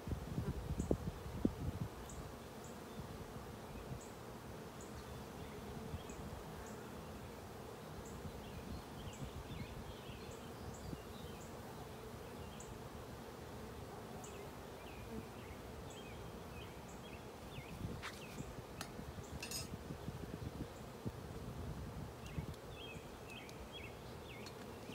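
Honey bees buzzing in the air around an open hive, a steady hum. A few sharp clicks come about three-quarters of the way through.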